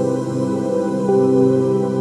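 Soft, relaxing new-age background music of long held notes, shifting to new notes about a second in.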